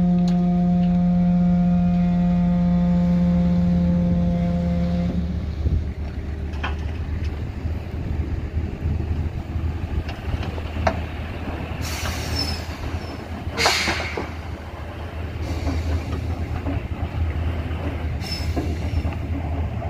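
Tipper dump truck's diesel engine held at steady raised revs with a loud hum while the bed tips, dropping to a low idle rumble about five seconds in as the sand load slides out. There are a few knocks, the loudest about fourteen seconds in.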